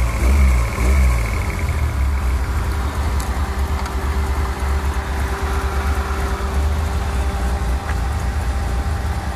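Toyota 4A-GE 20-valve 'Silvertop' four-cylinder engine, set up with adjustable cam pulleys, revving up and down briefly, then settling into a steady idle about two seconds in.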